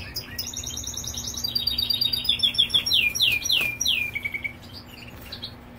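Caged European goldfinches singing: quick twittering trills and a run of descending slurred notes, fading out after about four and a half seconds. A faint steady low hum runs underneath.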